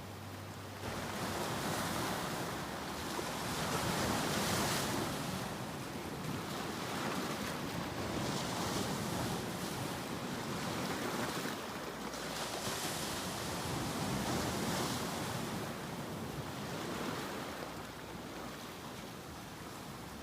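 Ocean surf: waves breaking and washing in, the rush swelling and fading every few seconds.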